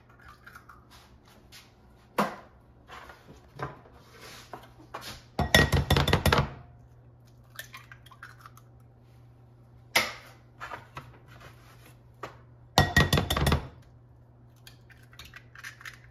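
Eggs cracked one after another against the rim of a glass mixing bowl: two loud runs of quick sharp taps, several seconds apart, with lighter clicks of shell between them. A faint steady low hum lies underneath.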